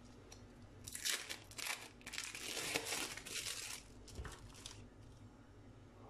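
Plastic wrapping of sliced cheddar cheese crinkling as slices are pulled out of the packet, in three bouts of rustling, the longest from about two to three and a half seconds in.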